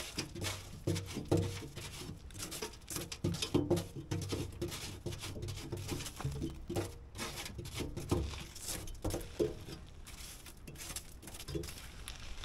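Gravel being cleared out of a snowblower's auger housing: an irregular run of small clicks, knocks and scrapes with a few duller thuds.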